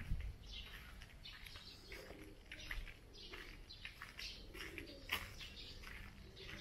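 Several birds chirping with many short, overlapping calls, and a low thump right at the start.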